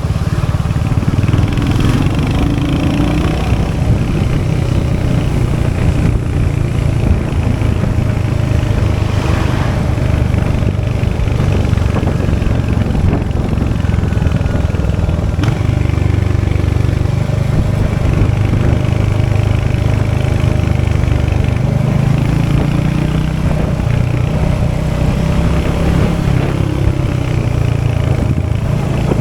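Royal Enfield Hunter 350's 349cc single-cylinder J-series engine running steadily through its exhaust, with no marked revving.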